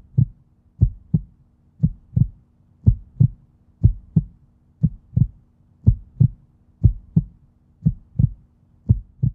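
Heartbeat sound effect: low double thumps, about one pair a second, over a faint steady hum.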